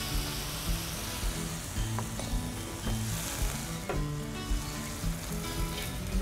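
White wine sizzling as it hits a hot stainless steel sauté pan of seared seafood, deglazing it, with a steady hiss while the pan is shaken and a couple of short knocks about two and four seconds in.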